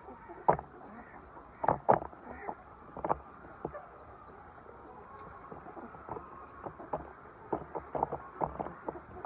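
Poultry-farm chickens: irregular sharp taps and clicks, loudest about half a second in and just before two seconds in, with faint high chirps in quick groups of about four.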